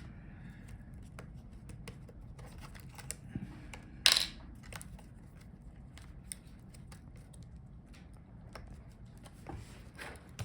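Small laptop parts and tools being handled during disassembly: scattered light clicks and taps, with one short, sharp clatter about four seconds in.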